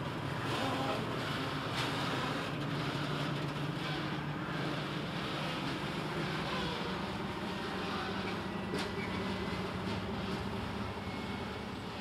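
SM42 diesel-electric shunting locomotive's eight-cylinder a8C22 diesel engine working as it pulls away with an open wagon, a steady low hum that slowly fades toward the end.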